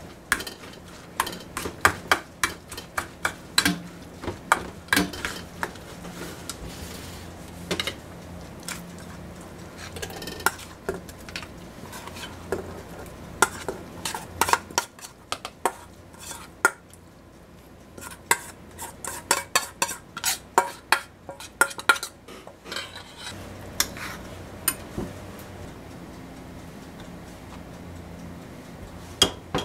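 Food being mixed in a stainless steel bowl and scraped into a metal pot: repeated clinks and knocks of metal on metal, coming in clusters, with a quieter pause a little past the middle.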